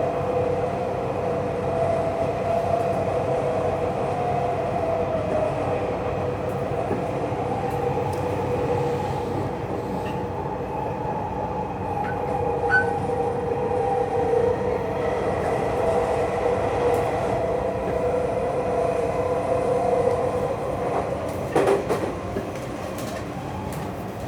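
Tokyu 3020 series electric train running between stations, heard from inside the car: steady running noise with a hum of a couple of held tones, and a few short clunks near the end.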